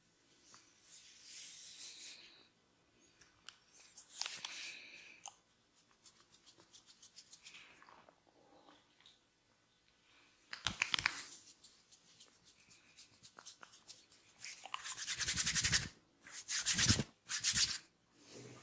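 Hands rubbing and scratching on skin and hair during a head and body massage, in short bursts of dry, rapid strokes, the loudest coming in the last few seconds.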